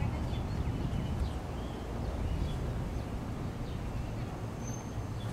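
Outdoor ambience: a steady low rumble, with small birds chirping faintly now and then.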